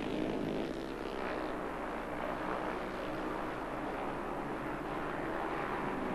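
Speedway motorcycles, 500 cc single-cylinder bikes, racing at high revs in a steady, wavering engine drone.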